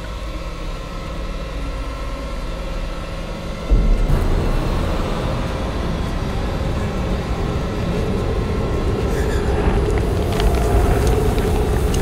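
Film soundtrack for a tense scene: a low droning chord, then a sudden deep rumble about four seconds in that keeps building. A steady held tone joins later, with scattered crackles near the end.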